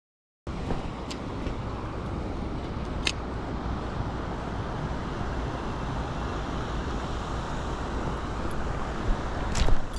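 Steady rushing of a mountain stream, starting about half a second in, with a few sharp clicks over it.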